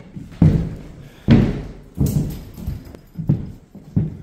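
Footsteps on a bare plywood floor in an empty, unfurnished room: about six heavy, regular thuds, roughly one every 0.7 seconds, each with a short echo.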